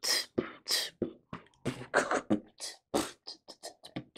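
Quick percussive mouth sounds from a person: a dozen or so short, sharp hisses, pops and clicks at an uneven rhythm, like beatboxing.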